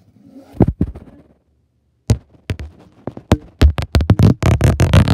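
A series of loud, irregular knocks and thumps: a few in the first second, a short pause, then crowding together faster and faster in the last second and a half.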